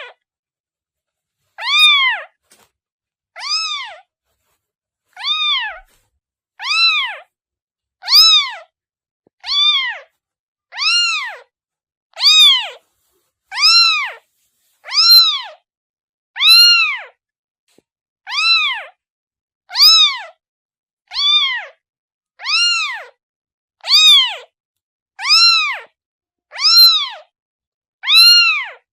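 A kitten meowing over and over, a short call about every second and a half, each one rising and then falling in pitch, with silence between calls.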